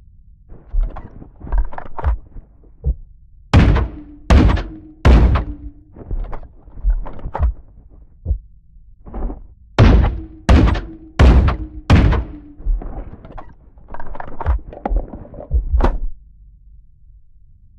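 GSW-AMR .50-calibre sniper rifle firing: a group of three sharp shots less than a second apart, then after a pause a group of four, each with a short ringing tail. Fainter mechanical clicks and knocks fill the gaps.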